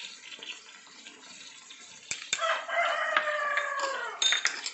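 A rooster crowing once: one long call of about two seconds that falls in pitch at its end, preceded by a couple of faint clicks.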